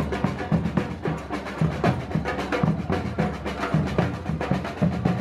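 A marching drum group playing a fast, continuous beat on parade drums.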